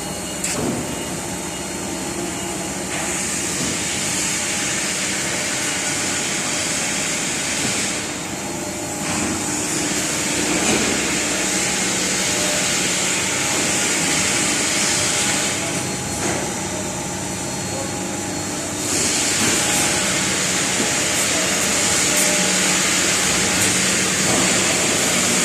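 Steady industrial machinery noise with a constant hum underneath. A loud hiss comes and goes in three spells of several seconds each.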